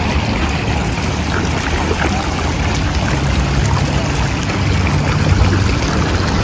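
Steady low rumble of wind on the microphone, over light splashing of feet wading through shallow water.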